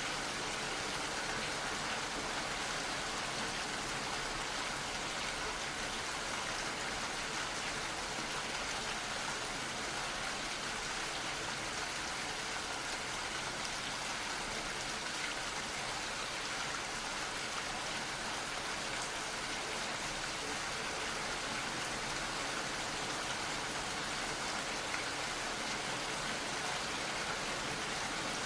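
Gentle rain falling steadily, a soft even patter of drops with no breaks.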